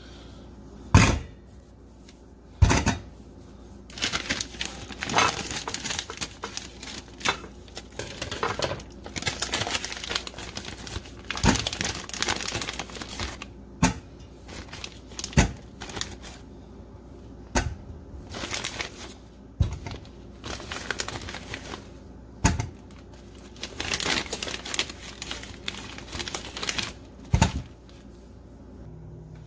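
Whole potatoes dropped one at a time into a stainless steel colander, about a dozen knocks on the metal at irregular intervals, with a plastic bag rustling between drops.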